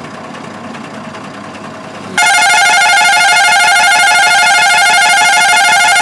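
Tata truck's horn sounding one long, loud, fast-warbling blast at a steady pitch, starting about two seconds in.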